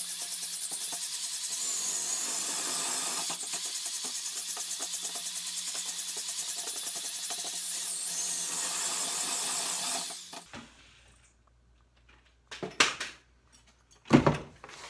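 Power drill with an all-metal paddle mixer whirring steadily with a fast flutter as it churns a stiff paper clay dough. It stops suddenly about ten seconds in. A few knocks from the metal bucket being handled follow, with one loud thump near the end.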